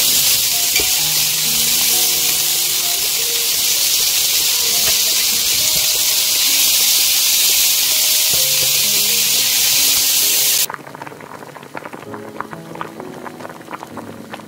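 Pork belly sizzling hard on a black griddle pan: a loud, steady hiss like a rain shower. It cuts off abruptly about 11 seconds in, leaving light scattered clicking under the music.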